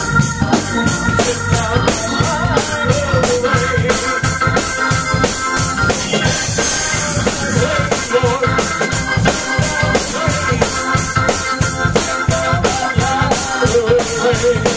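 Live church worship music: organ chords held over a steady drum beat.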